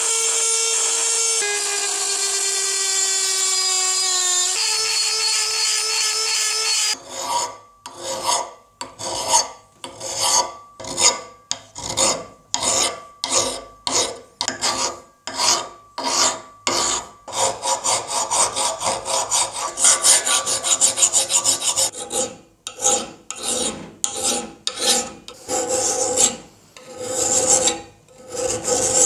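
A power tool runs with a steady whine that dips slightly in pitch for a few seconds, then stops about seven seconds in. Then comes a steady rhythm of hand strokes, an abrasive drawn back and forth over metal, a little more than one stroke a second, each with a slight ring.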